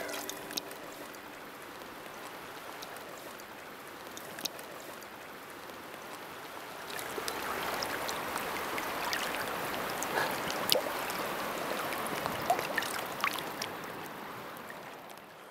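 Shallow river water flowing and lapping, with small splashes and clicks. It gets louder about seven seconds in as hands swish through the water, then trails off near the end.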